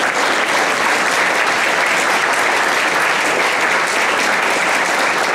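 Audience and singers applauding together: many hands clapping at a steady level.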